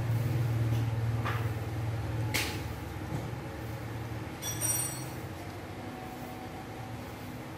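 Soft grass broom swishing across a tiled floor in a few separate strokes, over a steady low hum. A brief high-pitched clink comes about halfway through.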